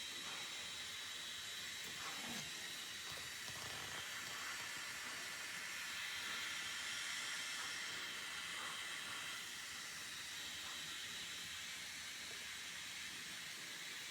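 Conair hand-held hair dryer running steadily, heard as a faint, even rush of blowing air.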